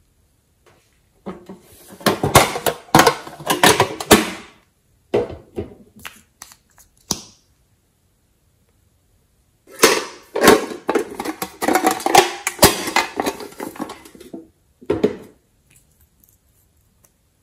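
Slime being squished and mixed, with wet crackling and popping clicks in two long bouts and a few short bursts between them.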